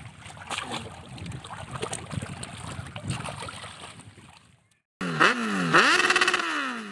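Water splashing and sloshing as otters swim and move about in a shallow muddy ditch. About five seconds in, a loud electronic transition effect cuts in, its stacked tones sliding down and back up several times before falling away and stopping short.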